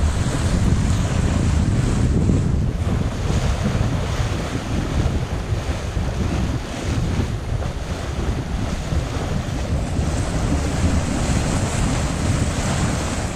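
Wind buffeting the microphone over the rush of sea water along a sailing yacht's hull under sail: a steady, heavy noise with no tones in it.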